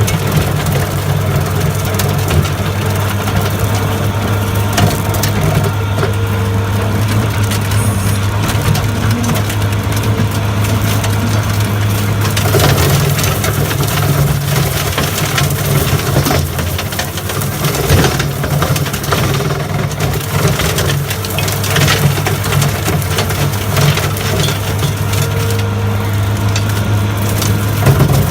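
New Holland L170 skid steer engine running steadily under load while its 5 ft Loflin brush cutter chops thick brush, with frequent sharp cracks and snaps of wood splintering.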